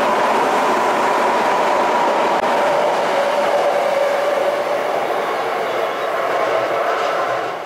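Recorded sound of a real Saitama Rapid Railway 2000 series electric train running, with a steady motor whine over wheel and track noise, fading near the end.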